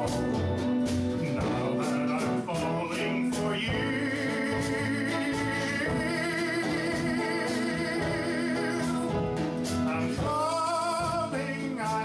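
A man sings with instrumental accompaniment. He holds a long note with vibrato from about four seconds in to about nine seconds, then sings another held note shortly before the end.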